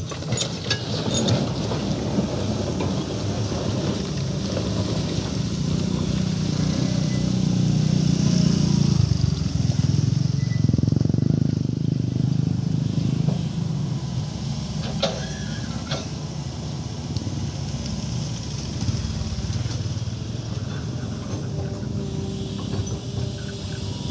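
Crawler hydraulic excavator's diesel engine running steadily, growing louder for several seconds partway through as the boom and bucket work, then easing back. Two short metallic clanks come later on.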